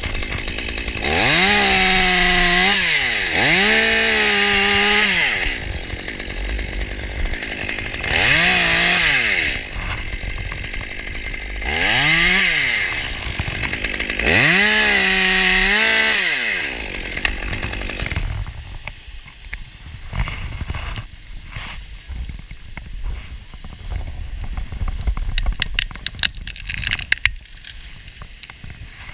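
Two-stroke chainsaw revving up to full throttle and dropping back again five times as it cuts through the top of a conifer trunk. The engine then falls quiet, leaving rustling and a quick run of sharp clicks and snaps near the end.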